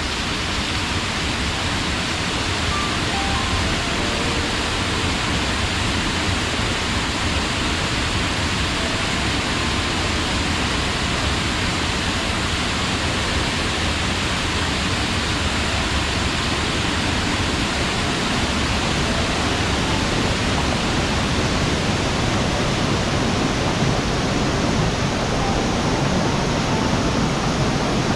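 A waterfall rushing steadily, an even wash of falling water with no breaks.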